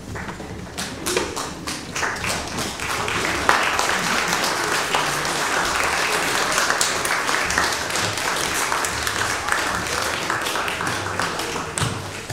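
Congregation applauding, a dense clapping that builds over the first few seconds and thins out near the end.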